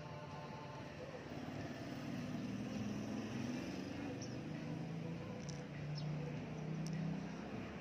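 Faint outdoor background noise with a low hum that swells and fades, and a few faint ticks.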